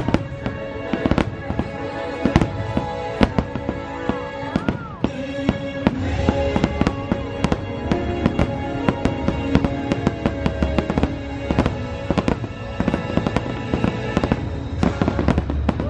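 A fireworks barrage: many rapid, sharp bangs and crackles of aerial shells and rising comets going off one after another, with the show's music playing underneath.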